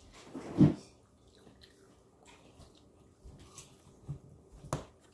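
A person chewing a juicy piece of watermelon with the mouth closed, making wet, squishy chewing sounds. The loudest of them comes about half a second in, and there is a sharp click near the end.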